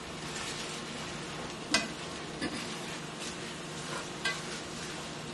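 Food sizzling in a cast-iron skillet as metal tongs stir and toss spinach, chicken and vegetables through it, with a few light clicks of the tongs against the pan.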